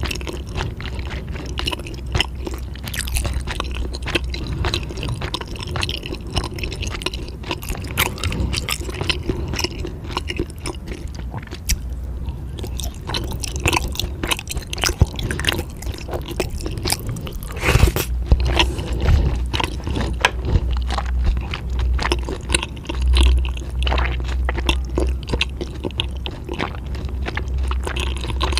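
A person chewing and crunching food with their mouth, with many quick, irregular sharp clicks and crunches.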